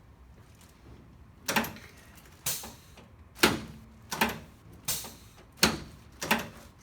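A rapid series of about eight sharp mechanical clacks, each with a short ring, under a second apart, made during a chiropractic adjustment of the sacrum and lower back.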